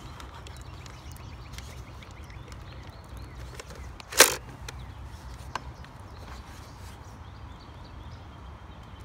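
A sharp hard-plastic clack from the toy water bead blaster being handled, once about four seconds in, with a fainter click a second or so later, over a steady low rumble.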